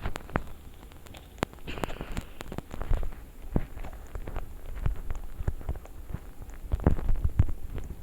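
Irregular clicks, taps and soft low thumps from someone handling things close to the microphone, with the loudest cluster of knocks near the end.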